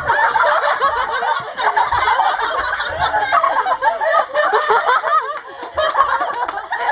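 Several people laughing and giggling in high voices, nearly without a break, with a short lull about five seconds in.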